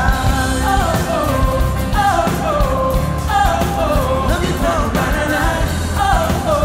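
Live pop-rock band performance with singing: a sung melody of short falling phrases over a steady bass line.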